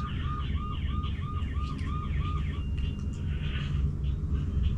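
Electronic warbling chirps repeating about three times a second, like an alarm or a toy siren, stopping a little over halfway through, over a steady low rumble.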